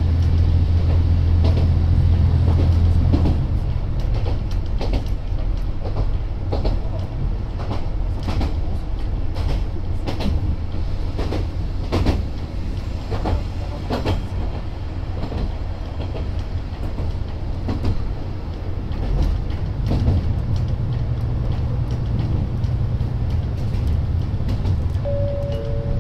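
Onboard running sound of an Isumi 200 series diesel railbus. A strong low engine drone for the first three seconds or so drops back, leaving the rumble of the car on the rails with irregular clicks of wheels over rail joints. The low engine note comes up again about twenty seconds in, and near the end there is a short two-note tone, the second note slightly lower.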